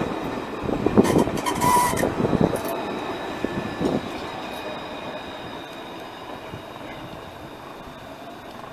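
Alstom Citadis low-floor tram running past and rounding a curve, with a run of clattering knocks from the wheels on the rails about a second in and a thin, steady high whine. The sound fades as the tram moves away.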